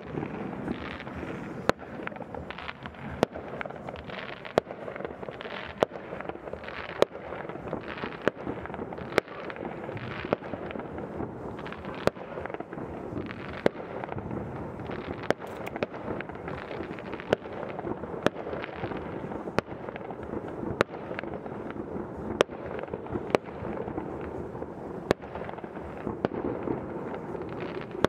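Many fireworks going off at once: a continuous bed of distant crackling and popping, with sharp single bangs standing out about every second or so.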